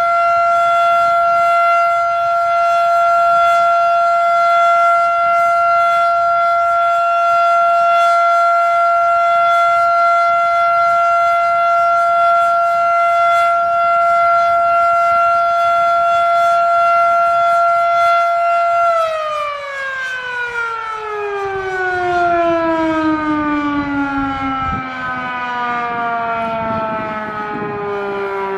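Federal Sign and Signal Model 7 outdoor warning siren sounding its steady full-alert tone. About two-thirds of the way through it shuts off and winds down, its pitch falling gradually.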